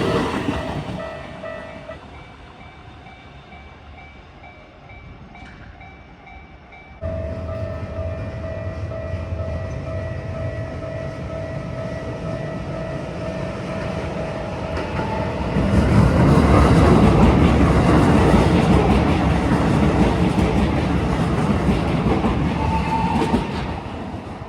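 A Japanese level-crossing warning bell ringing with steady tones, then a Keikyu electric train passing through the crossing at speed. The sound steps up abruptly about seven seconds in, and the train is loudest for about seven seconds before fading near the end.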